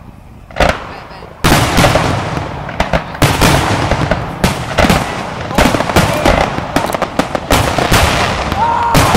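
Fireworks display: a single bang, then from about a second and a half in a rapid, unbroken barrage of aerial shells bursting, several bangs a second.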